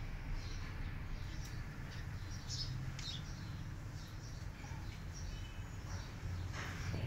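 Small birds chirping in short, scattered high calls, some falling in pitch, over a steady low background rumble.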